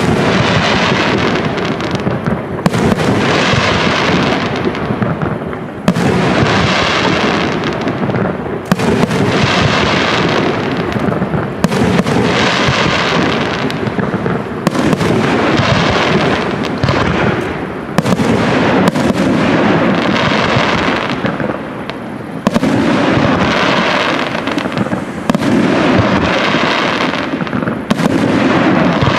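Aerial firework shells bursting in a steady sequence, a loud bang about every three seconds, each followed by a crackling tail that fades as the stars burn out.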